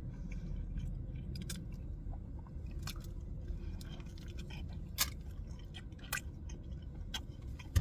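A person chewing a mouthful of chicken-tender sandwich, with soft wet mouth clicks and a few sharper clicks about five and six seconds in and near the end, over a steady low rumble.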